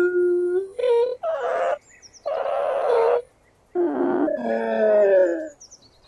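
A turtle hissing and calling in short separate bouts: a held pitched call that ends about half a second in, a brief call, two breathy hisses, then a longer call that wavers and falls slightly in pitch near the end.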